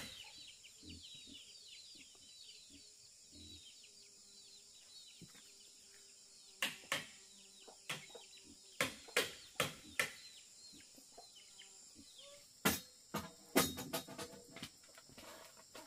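Sharp knocks of a tool striking bamboo, coming in quick runs of two to four from about halfway through. Under them run a steady high insect whine and fast, high, falling chirps.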